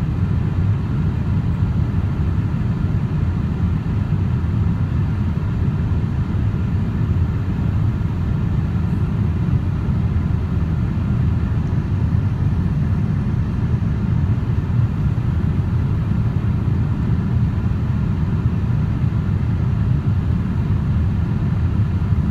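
Steady low rumble of engine and airflow noise inside a Boeing 787-8 Dreamliner's cabin in flight, with a few faint steady hums above it.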